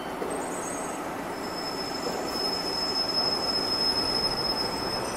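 CNC vertical milling machine cutting a metal part: a steady machining noise, joined about a second and a half in by a thin, steady high-pitched squeal from the cutter.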